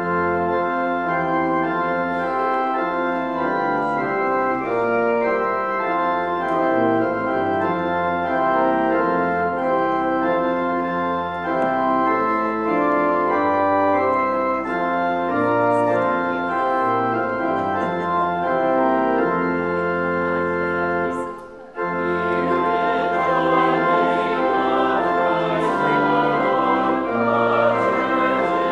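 Pipe organ playing the introduction of a hymn in sustained chords; after a brief break about 21 seconds in, the congregation begins singing the hymn with the organ.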